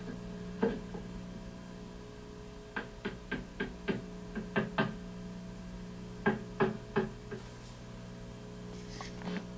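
Hammer nailing wooden paneling boards: sharp knocks, one at a time and in quick runs of about three blows a second. A steady low mains hum from the TV playback runs under them.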